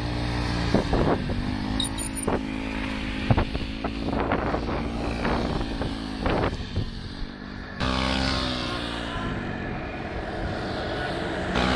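Motorcycle engine running at low speed, its pitch rising and falling as the bike is manoeuvred through slow, tight turns, with several brief thumps along the way. About eight seconds in, the sound changes abruptly to another engine with a rising and falling pitch.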